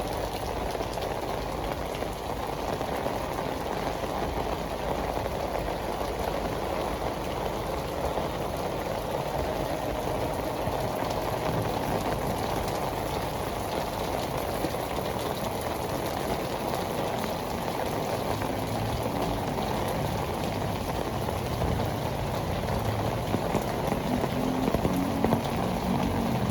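Heavy tropical rain pouring steadily onto pavement and the street. In the last few seconds a low rumble grows under it.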